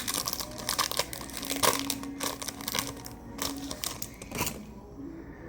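Foil wrapper of a trading-card pack crinkling and crackling in quick, irregular crackles as it is worked open by hand.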